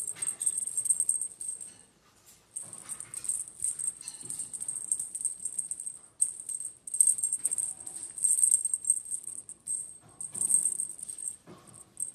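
A dry, high-pitched rattle shaken in irregular bursts of one to three seconds, broken by short pauses.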